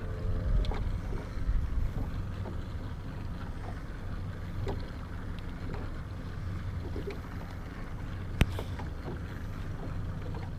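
Wind rumbling on the microphone over water lapping against a small fishing boat, with one sharp click about eight seconds in.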